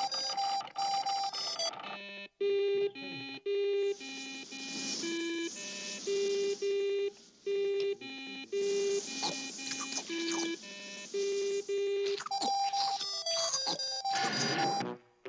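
Cartoon robot's electronic beeping: a string of short beeps jumping between a few pitches, about two a second.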